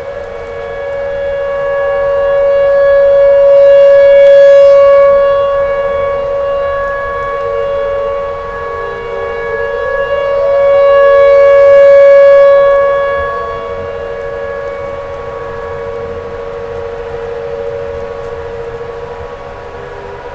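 Tornado warning siren sounding a steady wail, swelling louder and fading twice. Its pitch dips briefly and climbs back a few times.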